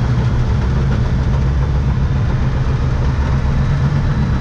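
Car engine and road noise heard from inside the cabin while driving, a steady low drone.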